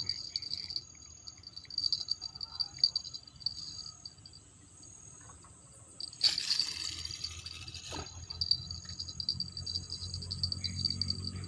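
Insects chirring steadily in a high, pulsing drone. About six seconds in comes a short rustling noise, ending in a single sharp click.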